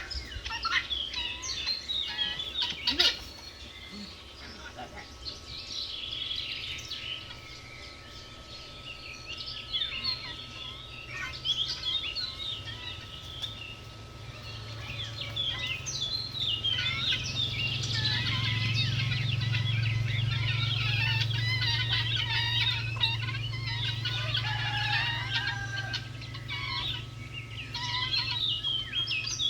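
Many birds chirping and calling densely, with a sharp click about three seconds in. A low hum under the birdsong swells midway through for about ten seconds, then eases.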